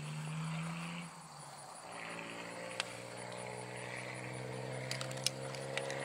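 A distant engine droning at a steady low pitch, dipping about a second in and then carrying on, with insects buzzing faintly in the background and two sharp clicks.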